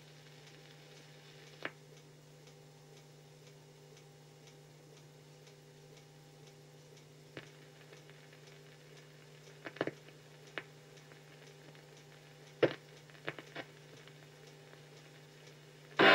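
Faint steady hum with a few scattered clicks and pops from an 8mm film print's soundtrack in a stretch without music; the music comes back in at the very end.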